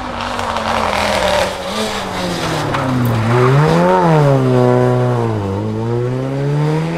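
Rally car engine at high revs on a special stage: the engine note climbs to a peak about four seconds in, falls away, then climbs again.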